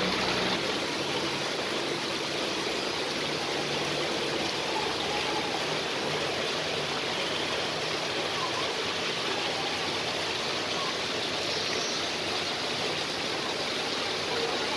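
Man-made waterfall spilling down an artificial rock face: a steady rush of falling and splashing water.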